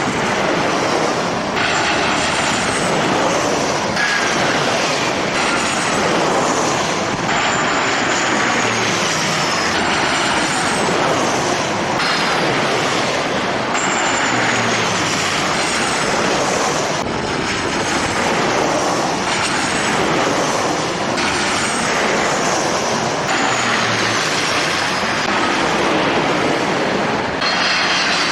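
Jet airliner engine noise, loud and steady, with high turbine whines that fall in pitch again and again.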